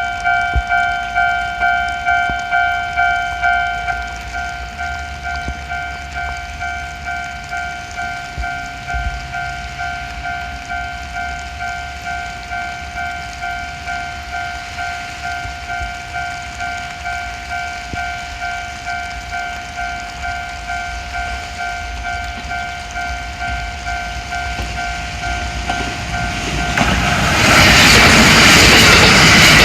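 Japanese railroad crossing warning bell ringing its "kan-kan", about two strikes a second, a little quieter after about four seconds. Near the end a Kintetsu limited express train passes through the crossing, and its loud rushing wheel noise covers the bell.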